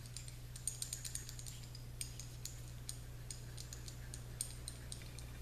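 Paper napkin crinkling and small metal tool clicking as they are handled together, the napkin being wrapped around the tool's tip for wiping oil and grime off pistol parts. The clicks are light and scattered throughout, over a steady low electrical hum.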